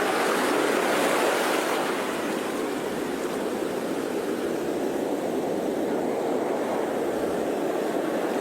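Sea waves washing on a shore: a steady rush of surf, easing slightly about two seconds in.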